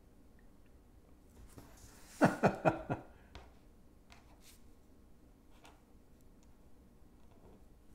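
Felt-tip pen faintly scratching across paper as a tail is inked in. About two seconds in comes the loudest sound: a short voiced chuckle of four quick pulses, each falling in pitch.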